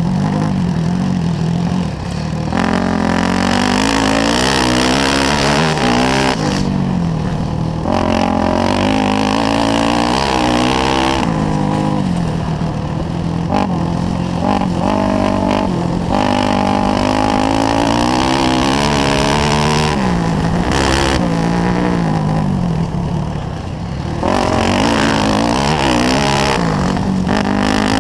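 Yamaha YZ400F motocross bike's single-cylinder four-stroke engine revving hard under race load, its pitch climbing and falling again and again as the rider works the throttle and gears. The level drops briefly about two seconds in and again a few seconds before the end where the throttle is shut off.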